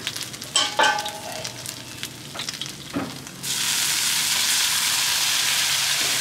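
Chillies and garlic sizzling in oil in a hot steel wok, a metal spatula scraping against the pan a few times. About halfway through the sizzle jumps suddenly to a loud, steady hiss as liquid seasoning sauce is poured into the hot wok.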